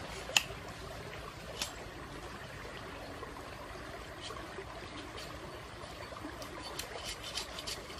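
Wood fire crackling beneath a whole crocodile roasting on a spit: scattered sharp pops, several close together near the end, over a steady hiss.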